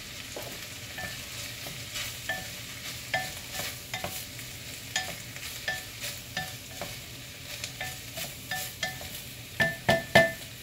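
Wooden spoon stirring diced vegetables sautéing in oil in a glass casserole pot, over a steady sizzle. The spoon knocks against the glass about every half second with short ringing clinks, and the loudest knocks come near the end.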